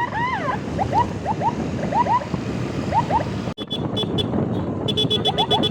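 Electronic emergency siren giving short rising chirps and swoops over steady road and engine noise. About three and a half seconds in the sound briefly cuts out, and after that a fast pulsing beep joins the siren.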